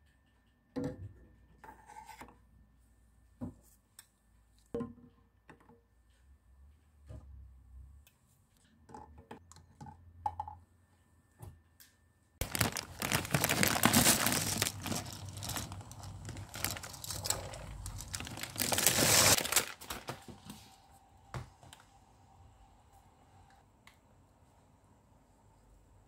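Dry macaroni poured from a bag into a stainless steel pot: a dense rattle and crinkle that starts suddenly about halfway through and lasts some eight seconds. It is loudest at the start and again just before it stops. Before it come a few light clinks and knocks of a metal spoon against a saucepan as eggs are lowered into water.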